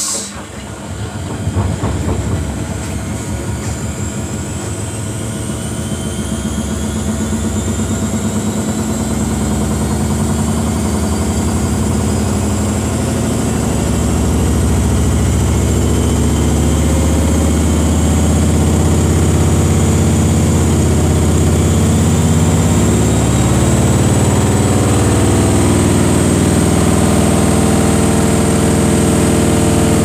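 Samsung front-loading washing machine ramping up a high-speed spin in service mode, its drum climbing to about 1,200 rpm. A motor whine rises slowly in pitch over a low hum that grows louder for about the first half, then holds steady.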